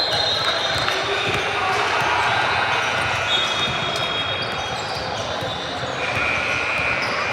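A basketball dribbling on a gym floor in a large echoing hall, with high squeaks and voices from the court and the stands.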